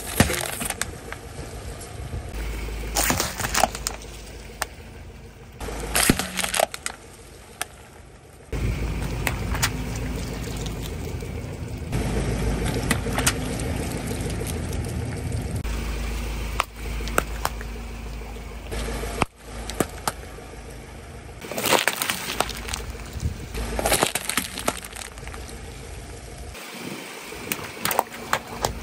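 Car tyre rolling slowly over plastic bottles and balloons full of water beads, crushing them in a series of sharp plastic cracks and splats over a low rumble of engine and tyres.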